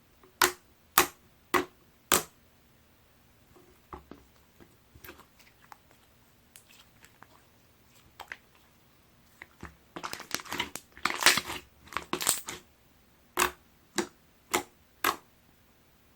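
Red and purple two-tone clear slime being played with by hand, giving sharp popping clicks. There are four evenly spaced pops at the start, soft scattered clicks after them, a dense crackling stretch about ten seconds in, and four more pops near the end.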